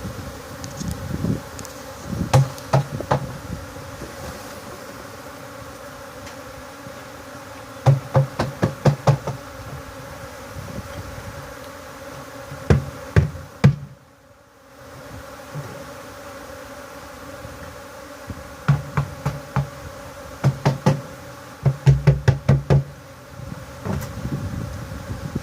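A large honeybee colony buzzing as a steady hum, broken by several bursts of rapid knocks, four to eight in a row. The hum drops away briefly about halfway through.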